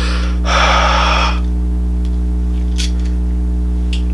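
A long breathy exhale about half a second in, warm breath blown onto a heat-sensitive colour-changing action figure to make its skin change colour. A loud steady electrical mains hum runs beneath it, and a few faint clicks come near the end.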